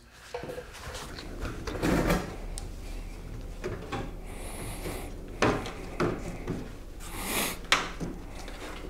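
Outer window belt seal being worked onto the top edge of a pickup truck door by hand, pushed down onto the door skin. It makes scattered knocks, clicks and rubbing, with a brief squeak about halfway through.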